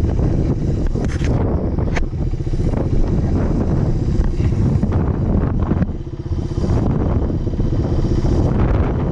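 Dirt bike engine running at low speed, with wind noise on the microphone. The engine sound dips briefly about six seconds in.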